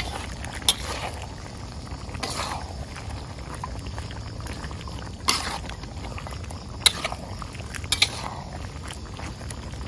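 Ladle and spatula stirring pork in a wok, scraping and striking the pan with several sharp clinks, while the thick sauce simmers and bubbles under a steady low hum.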